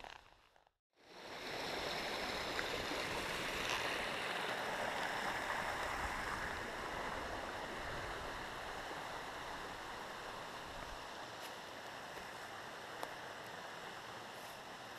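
Mountain stream rushing over rocks, a steady rushing that begins about a second in and slowly fades.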